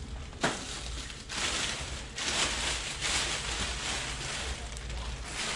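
A thin plastic bag rustling and crinkling in surges as a large RC dirt bike is pulled out of it, with a sharp tap about half a second in.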